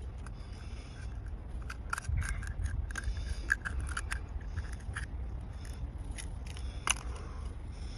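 A metal knife clicking and scraping against an oyster shell as the shell is pried open: a run of sharp clicks, the loudest a crack near the end.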